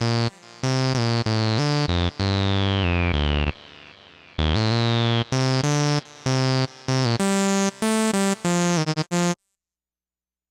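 Funky electronic synth jam played on an Akai MPC: short stabbed synth chords, each with a filter sweep falling in pitch, over a low synth bass. It stops abruptly about nine seconds in.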